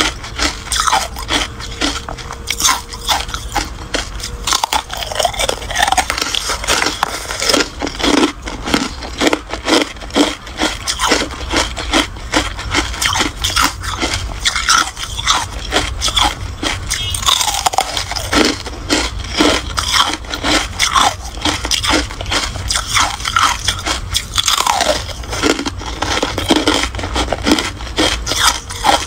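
Biting and chewing frosty carbonated ice: a dense, continuous run of crunches and crackles.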